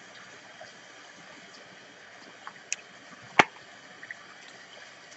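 Tarot cards being shuffled by hand against a steady faint hiss. A few light card clicks come a little past halfway, with one sharp snap of the cards the loudest.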